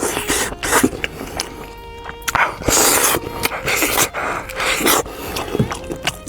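Close-up eating sounds from meat on a sheep's head: irregular bursts of slurping, sucking and chewing.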